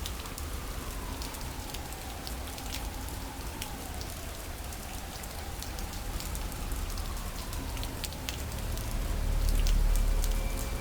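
Rain ambience, a steady hiss with scattered drop ticks, under a faint wavering eerie tone. A low rumble swells about nine seconds in.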